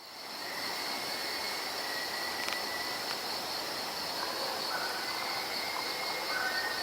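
Thin, steady, high whistling tones of unexplained origin, held for a second or two at a time, with a second, lower whistle joining about two-thirds of the way in. A constant high-pitched insect chorus runs underneath.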